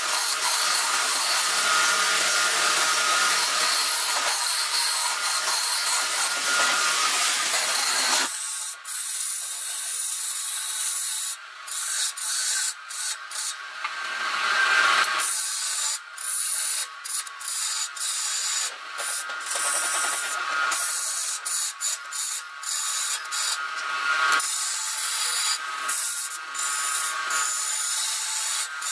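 Wood lathe turning a piece while a hand-held steel turning chisel cuts the spinning wood, a scraping hiss. It runs unbroken for about the first eight seconds, then comes in shorter passes broken by brief gaps, with a faint steady whine underneath.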